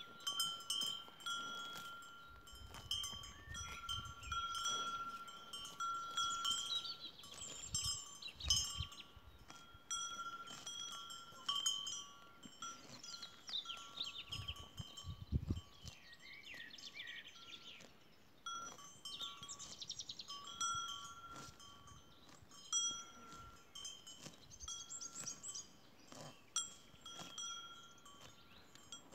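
Cowbells on grazing cows ringing on and off, a clear bell note that starts up again each time the animals move their heads. Small birds chirp and sing now and then.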